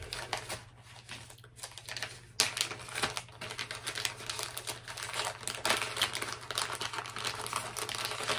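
Plastic packaging crinkling and rustling as a small toolkit pouch and its little plastic baggies are handled. It is a dense run of quick, irregular crackles, thicker from about two seconds in, over a faint steady hum.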